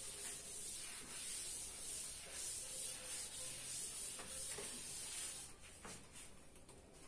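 Chalkboard duster rubbing chalk off a chalkboard in repeated wiping strokes, a swelling and fading hiss that stops about five and a half seconds in.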